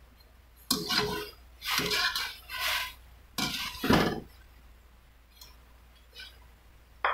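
Metal wire skimmer scooping boiled mushrooms out of a pot of boiling water: clinks and scrapes of metal against the pot, with water splashing and dripping back, in four short bursts over the first four seconds, the last the loudest.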